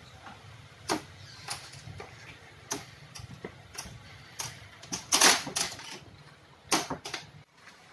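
A series of about ten sharp knocks and clicks at uneven spacing, the loudest cluster just past the middle, over a steady low hum.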